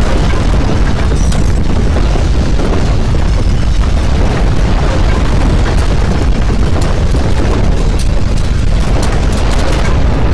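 Loud, continuous deep rumbling with crackles and rattles on top, the sound of violent earthquake shaking. The crackles grow denser near the end.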